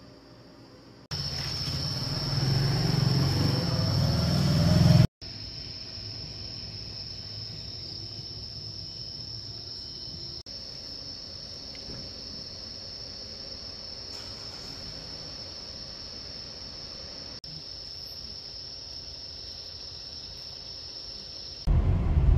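A vehicle engine runs loudly for about four seconds, rising in pitch, then cuts off. After it, crickets trill steadily and high at night. Near the end, engine and road rumble inside a moving car takes over.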